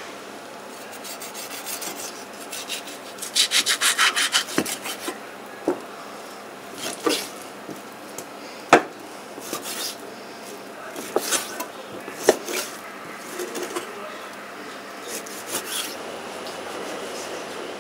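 A knife cutting raw wild boar meat on a cutting board: a quick run of sawing strokes about three to four seconds in, then scattered scrapes and sharp knocks of the blade against the board.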